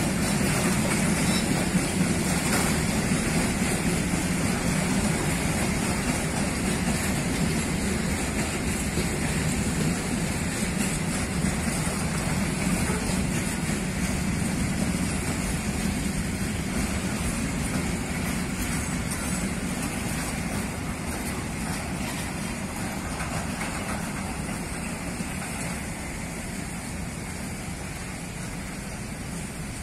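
Empty container flat wagons of a freight train rolling past on the rails, a steady rumble of wheels on track. The rumble fades slowly in the last several seconds as the end of the train moves away.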